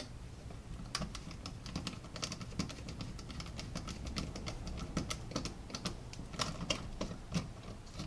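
Hand screwdriver turning a brass terminal screw on an electrical receptacle to tighten it down on a wire loop. It makes a string of small, irregular metal-on-metal clicks and ticks.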